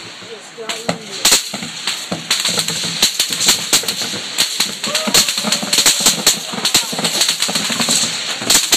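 Rapid rifle fire heard from the target pits: rounds cracking past overhead and into the targets. It begins with a few scattered sharp cracks, then becomes a dense stream of several cracks a second from about two seconds in.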